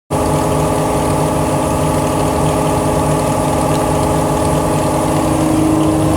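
An engine running steadily at a constant speed, with a hum that grows a little stronger near the end.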